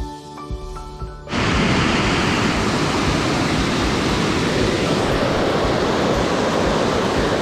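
A short mallet-percussion music phrase, then about a second in, a sudden cut to the loud, steady rush of a mountain stream's flowing water.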